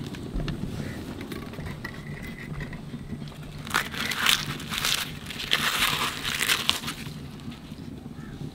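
Freshly cooked tandoori roti being folded and torn apart by hand, crackling and tearing in two spells, about four and six seconds in.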